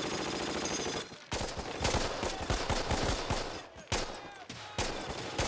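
Battle gunfire, bursts of machine-gun and rifle shots in a dense run of sharp cracks. It starts after a brief dip about a second in, following a second of steady noise.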